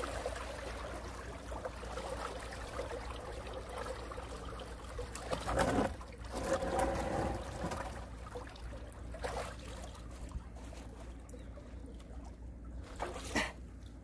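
Water trickling and splashing in a concrete irrigation ditch, easing a little over the second half, with a few short knocks and splashes from someone standing and moving in the water.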